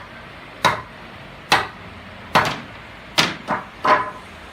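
A run of hammer blows on wood, about one a second and coming quicker near the end, as parts of a wooden bed frame are knocked together.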